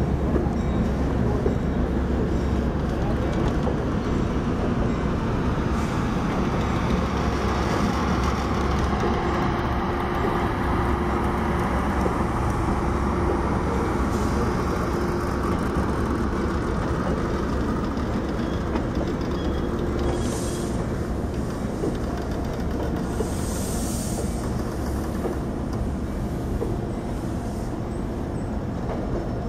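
Metrolink bilevel passenger cars rolling slowly past, with a steady rumble of steel wheels on rail that eases slightly near the end. Short high hisses come about two-thirds of the way through.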